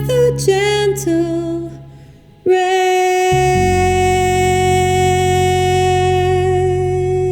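Closing bars of a jazz ballad for voice, guitar and bass. A woman's voice sings a falling phrase that fades out, then, about two and a half seconds in, starts one long held final note over a low sustained bass.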